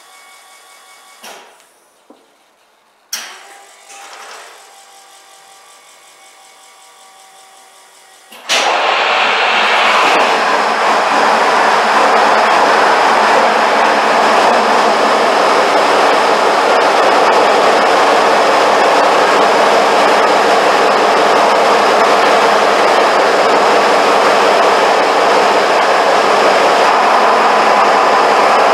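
Cummins ISL 8.9-litre diesel engine starting about eight seconds in, catching abruptly and then running steadily. Before it, a few knocks sound over the faint, quiet hum of the newly primed electric FASS fuel lift pump.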